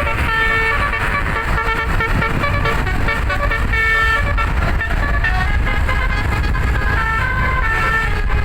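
Telolet basuri bus horn, a set of roof-mounted trumpet horns, playing a tune of held notes that step from one pitch to the next without pause, over a steady low rumble.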